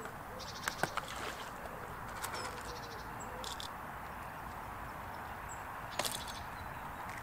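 Small birds chirping and trilling over a steady outdoor hiss, with a few sharp clicks as fishing tackle is handled, the loudest about a second in and again about six seconds in.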